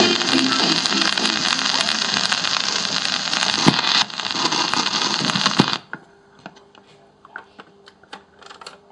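Loud hiss and crackle from a 78 rpm shellac record's surface as the stylus runs on after the music, with a couple of sharp pops. It cuts off suddenly about six seconds in as the tonearm is lifted, leaving only faint scattered clicks.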